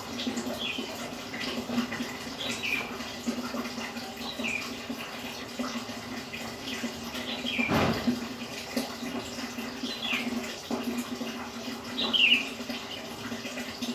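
Aquarium water running and bubbling from the tank's filter or air line, over a steady low pump hum. Short high falling chirps come every couple of seconds, and there is one louder splash-like burst about eight seconds in.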